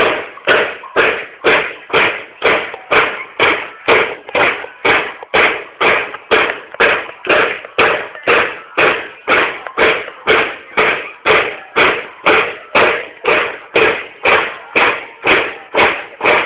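Banda de guerra marching drums beating a steady march cadence, a little over two evenly spaced strokes a second, each ringing briefly.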